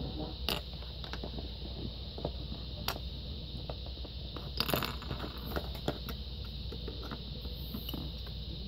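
Small plastic toy figures and accessories, a toy bowl and plate among them, being handled and set down on a tabletop: a few scattered light clicks and taps, a small cluster about halfway through, over a steady low background hum.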